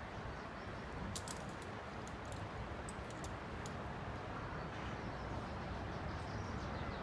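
Steady outdoor background hiss with a handful of faint, sharp high clicks between about one and four seconds in.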